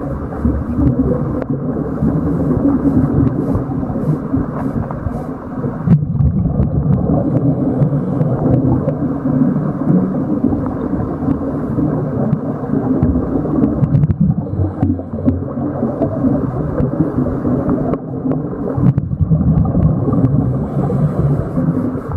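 Steady muffled underwater rumble of water noise heard through the housing of a camera moving along submerged net, with a few brief dips in level.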